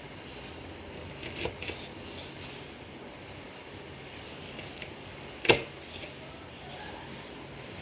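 Knife slicing red onion into small pieces: a few scattered knocks of the blade, the loudest about five and a half seconds in.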